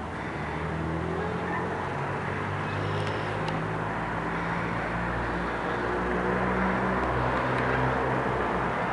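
A motor engine running steadily with a low hum, setting in about half a second in.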